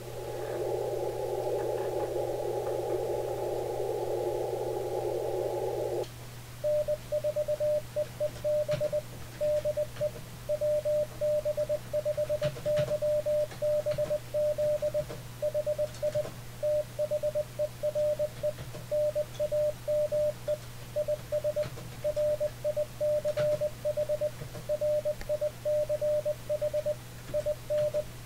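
Icom IC-7300 transceiver's receiver hiss through its narrow CW filter for about six seconds. Then its single-tone CW sidetone starts keying Morse code at about 20 words a minute, sending the typed contact 'N4EEB de WB5YBZ hi there name is Rich, Rich in OKC Oklahoma City, ur 599'.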